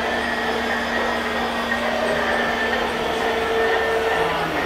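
A G scale model freight train of tank wagons rolls past on the track with a steady rolling rumble and a steady electric motor hum. A new lower hum joins about four seconds in, as the diesel locomotive comes by.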